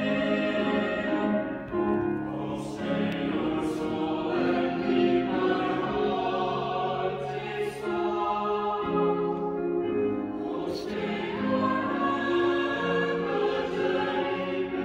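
Mixed high-school choir singing sustained, slowly changing chords, accompanied by grand piano; a few sung 's' consonants stand out briefly.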